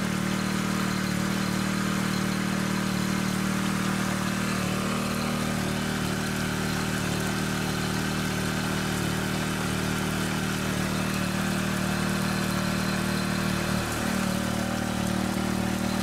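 Honda WX15 water pump's small engine running steadily at constant speed, with water rushing through the sluice.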